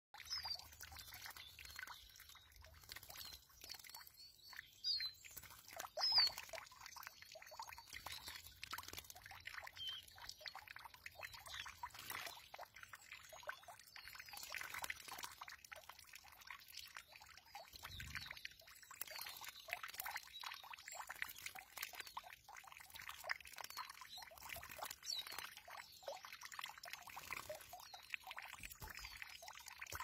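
Small birds bathing in a shallow pool, flicking and splashing water in quick faint bursts, with a few short high chirps in the first part.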